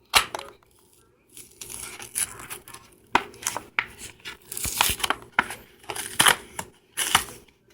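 Wrapper of a card pack being torn open and crinkled by hand: a run of irregular sharp crackles and rustles.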